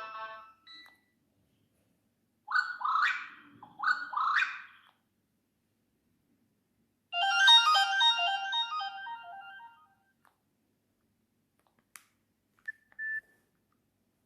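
Nokia 6600 built-in ringtones playing through the phone's small speaker: two rising electronic sweeps, then a short burst of quick chirpy notes that fades out, followed by a couple of faint clicks and a brief beep near the end.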